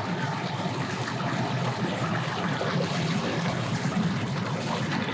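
Boat motor running steadily, with water washing and outdoor noise around it.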